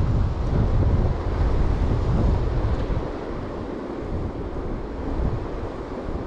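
Wind buffeting the microphone with a low rumble over the steady rush of a high, fast-running river. The buffeting eases off about three seconds in.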